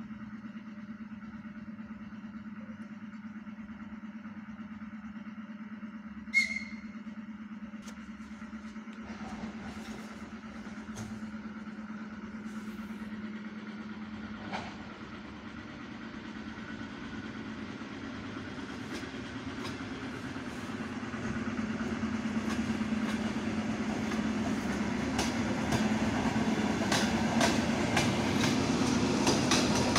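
Ten-car ER9M electric multiple unit approaching and passing: a steady hum that grows louder through the second half, with a single sharp click about six seconds in and wheel clicks over the rail joints coming thicker and faster toward the end.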